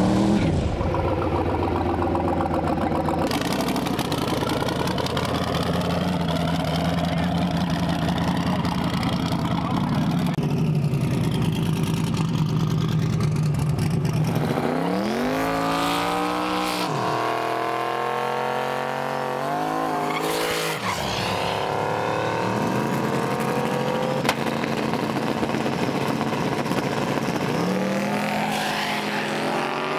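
Drag race car engines. One car passes at the start, its pitch falling; then engines idle steadily and are revved hard in quick rises and drops of pitch. Near the end an engine revs up again as the cars stage at the start line.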